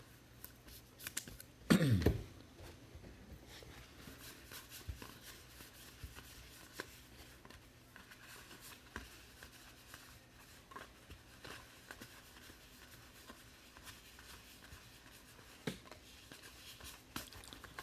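Soft handling of trading cards and foil pack wrappers: faint rustling, crinkling and small clicks as packs are torn open and cards are flicked through. A short voice-like sound about two seconds in.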